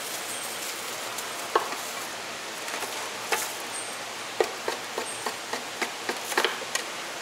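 Chinese cleaver knocking on a wooden chopping board as it slices a glutinous rice sausage into rounds: a couple of single knocks, then a quick run of knocks from about four seconds in, over a steady hiss.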